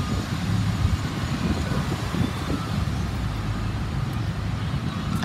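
Diesel engine of a 2007 Pierce Quantum fire engine running at low speed as it backs into its station bay, a steady low rumble.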